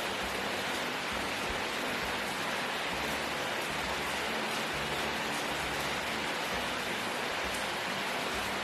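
Steady, even rush of running water, with no breaks or changes.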